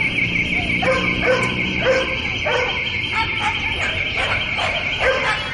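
Dog barking in short, repeated yips, roughly two a second, over a steady high-pitched buzz.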